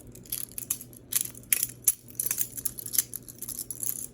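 A cheap balisong (butterfly knife) being flipped in the hand: its metal handles and latch clicking and clattering in quick, irregular taps.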